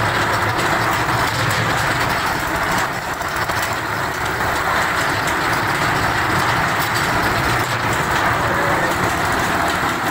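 Concrete mixer with skip lift running: a steady mechanical din from its motor and drive, with a slight dip about three seconds in.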